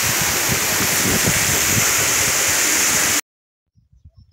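Heavy rain pouring down, with water gushing off roof spouts: a loud, steady rushing. It cuts off suddenly about three seconds in.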